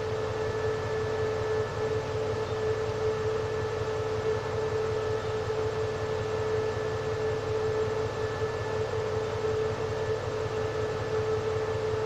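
SRT CRRC CDA5B1 diesel-electric locomotive standing and idling: a steady mechanical hum with a constant high-pitched whine over it.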